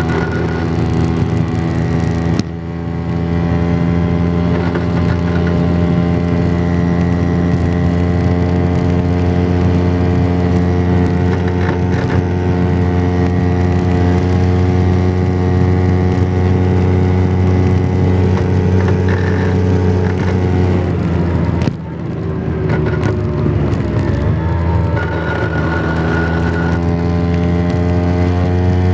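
Vespa PX 125's single-cylinder two-stroke engine running under way as the scooter is ridden. The engine note dips briefly twice, about two and a half seconds in and again about three-quarters of the way through, then climbs again.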